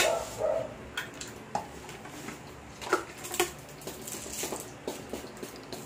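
Crinkling plastic and light knocks from a plastic-wrapped roll of adhesive wallpaper being handled and turned over, with a dog barking a couple of times in the background about three seconds in.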